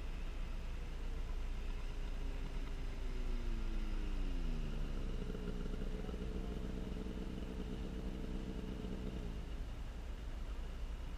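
Snowmobile engine whose pitch falls over a couple of seconds as it slows, then holds a steady note for about four seconds before dropping away near the end. A steady low rumble runs underneath.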